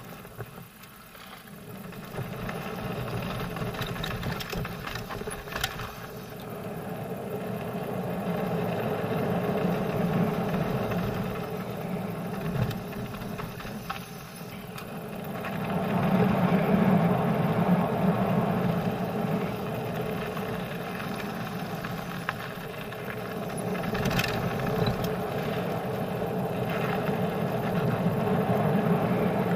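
Mountain bike rolling fast down a gravel trail: tyre rumble on loose gravel mixed with wind rushing over the helmet camera, swelling and fading with speed, with a few sharp rattles from the bike over bumps.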